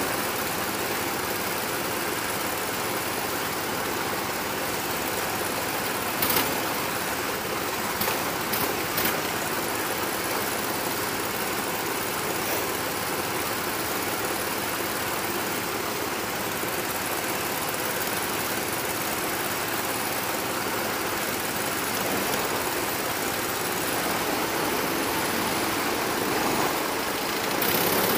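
Go-kart engines running as a steady mechanical drone. A few short sharp knocks come about six to nine seconds in.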